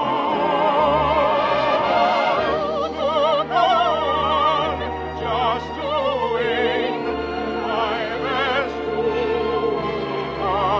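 Operatic singing with wide vibrato over an orchestra, the voices holding long notes, from an old radio broadcast recording.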